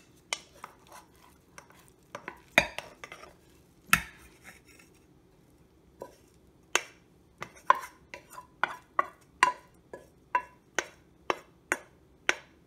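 A rice cooker's metal nonstick inner pot being knocked and tapped while cooked tagliatelle is tipped out of it onto a ceramic plate. A few scattered knocks come first, then from about halfway a steady run of sharp knocks at about two a second, several of them with a brief metallic ring.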